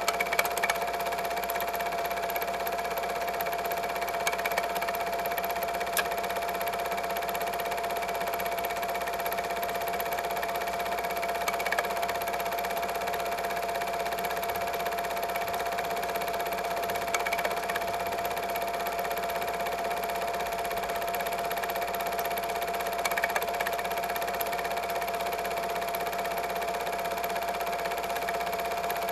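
Double 8mm film projector running: a steady motor whir with one constant tone, and a few faint clicks.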